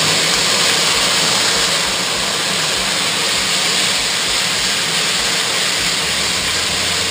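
Wine hitting a hot frying pan of beef patties and sizzling hard with a steady hiss as it boils off into steam, easing slightly after about two seconds.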